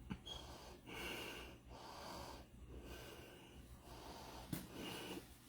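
Faint breathing close to the microphone: a series of soft puffs, with a sharp click near the start and another about four and a half seconds in.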